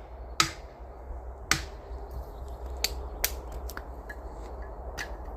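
Sharp cracks and knocks of wood being worked for firewood, about six at irregular intervals, the loudest about half a second and a second and a half in, over a low steady rumble.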